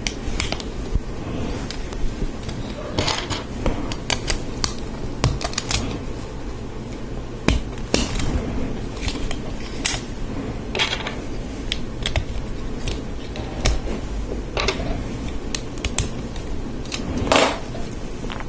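Plastic Lego Technic parts clicking and rattling as pieces are handled and pressed together: irregular sharp clicks, about one a second, over a low steady hum.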